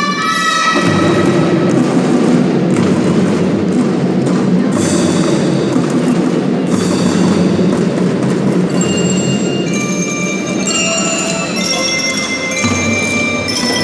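Children's drum band playing, with mallet bells ringing out a melody over drums and a dense sustained ensemble; the bell notes stand out more clearly in the second half.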